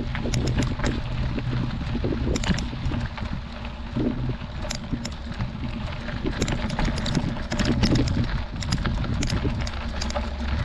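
Mountain bike riding over a rocky dirt road: tyres crunching on loose gravel with scattered clicks and rattles from the bike, over a steady low rumble of wind on the microphone.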